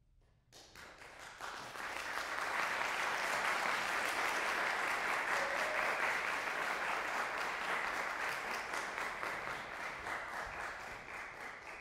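Audience applauding: it starts about half a second in, swells over a couple of seconds, then holds steady and eases slightly near the end.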